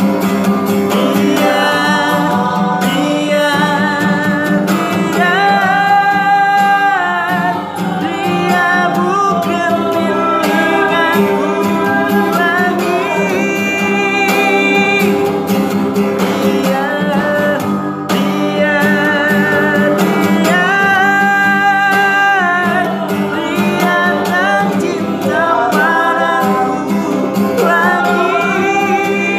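A man singing solo while strumming an acoustic guitar, holding long notes with vibrato.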